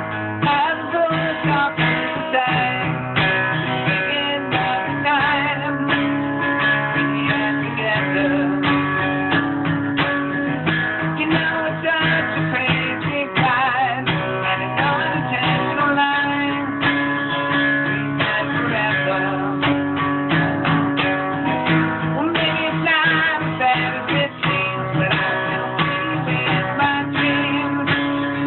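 A guitar strummed and picked continuously, playing a song; the player says it is probably slightly out of tune.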